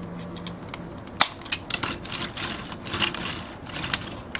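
Hard plastic Hikarian toy train bodies clicking and knocking as they are handled by hand and coupled together end to end. There is one sharper click about a second in and lighter clicks after it.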